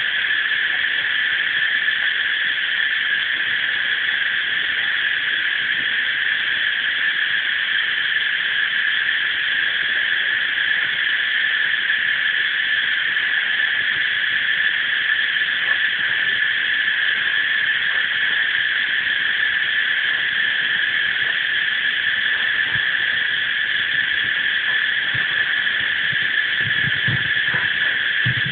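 Chorus of cicadas singing steadily, a dense unbroken high-pitched drone.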